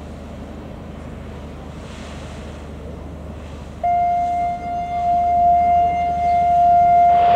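Wind and water noise with a low hum, then about four seconds in a ship's horn starts a single long, steady note at one unchanging pitch.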